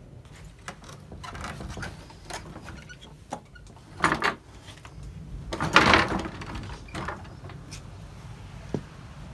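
Strong wind buffeting the microphone as a low rumble, with scattered knocks and two louder rustling, clattering bursts about four and six seconds in.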